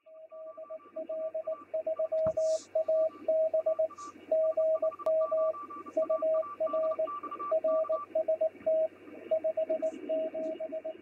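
Morse code heard over a ham radio receiver: a steady-pitched tone keyed in short and long elements over receiver hiss, with a second, higher-pitched Morse signal keyed alongside until about eight seconds in.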